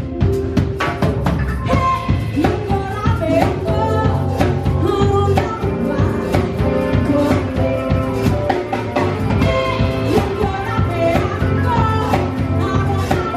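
Live band music with a drum kit keeping a steady beat under a sliding melodic lead line.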